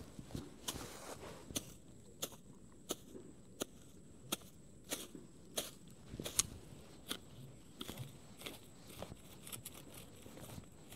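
Machete blade chopping at grass close to the ground: short crunchy strikes about every two-thirds of a second, coming quicker and lighter near the end.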